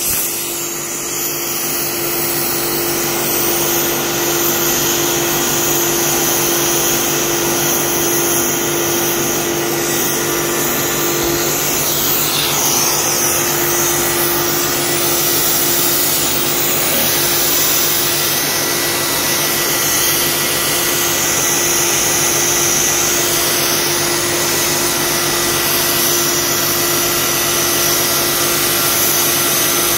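Oxy-fuel gas cutting torch hissing steadily as it cuts holes through a thick steel plate.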